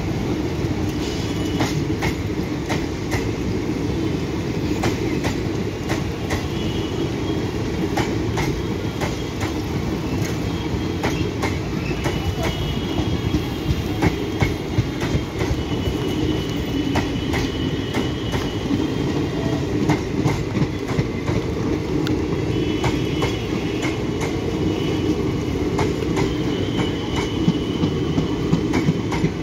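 Indian Railways express passenger coaches rolling past close by: a steady rumble of wheels on rail, with irregular clicks as the wheels cross rail joints and a faint high wheel squeal now and then.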